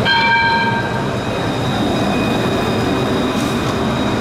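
An Alstom Citadis 403 tram passing close by: a steady rumble with a thin, steady electric whine above it. A short bell-like ring sounds right at the start.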